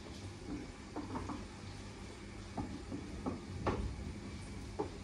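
Scattered light knocks and clinks of a spoon against a pan and jars at the stove, about seven in all, over a low steady hum.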